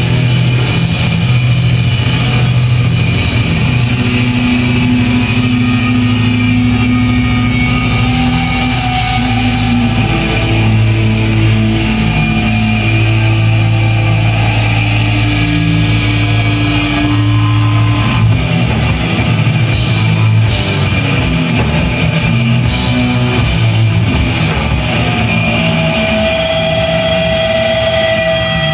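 Heavy rock music with electric guitar and held notes. About two-thirds of the way in the deep bass drops away and a run of sharp hits comes in.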